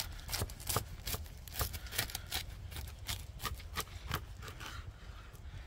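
Knife cutting through the charred, crisp-toasted tortilla of a large breakfast wrap on a wooden chopping board: a run of irregular crackling crunches that thins out near the end.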